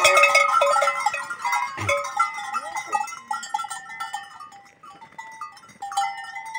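Goats and young kids bleating in the pen, several calls overlapping at once, loudest and busiest in the first two seconds and then thinning out.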